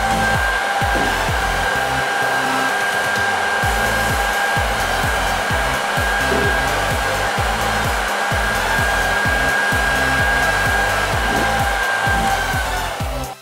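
A 3000W hair dryer running steadily, a loud rush of air with a steady whine, stopping just before the end. Background electronic music with a steady beat plays underneath.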